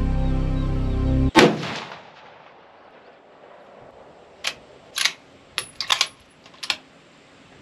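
Background music cuts off abruptly and a scoped rifle fires one loud shot from a bench rest, with a brief ringing tail. A few seconds later come about six quieter sharp cracks, two of them in quick succession.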